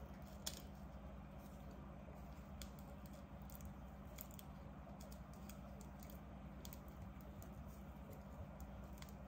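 Faint scattered clicks and crackles of fingers and small scissors working at sticky tape caught in a pigeon's wing feathers, over a steady low hum.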